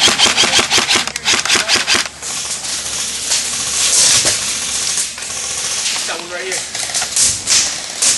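An M4-style airsoft rifle firing a rapid full-auto string of shots for about the first two seconds, then scattered single shots.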